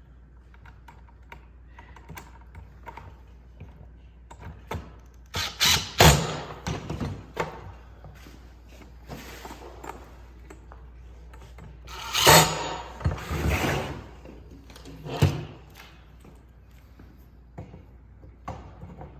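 Knocks, clunks and handling rattles of the catch basket being fitted onto a Sticker Burr Roller, in three loud clusters: around six seconds in, again around twelve to fourteen seconds, and one sharp knock near fifteen seconds.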